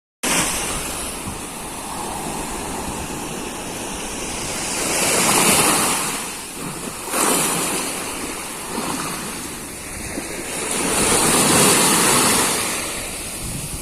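Sea surf washing onto a beach, a steady rush of breaking waves that swells louder twice, about five seconds in and again near eleven seconds, with a sudden surge a little after seven seconds.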